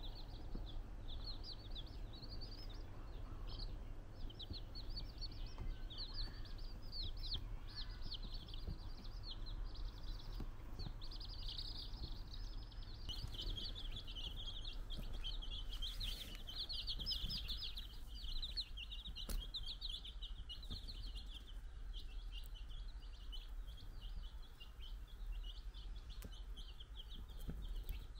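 A group of baby chicks peeping continuously, many short high chirps overlapping, busiest around the middle.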